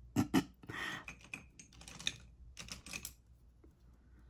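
Light clicks and clatter of plastic makeup cases and compacts being handled, put away and picked up, in an irregular string of small knocks.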